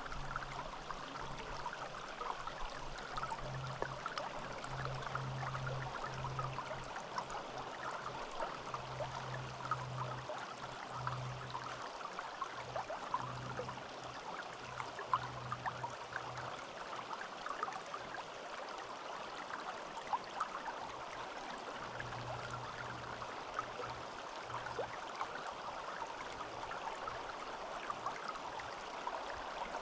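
Small forest stream babbling steadily over stones, an even rush of water with many little splashes and drips. A faint low hum comes and goes beneath it.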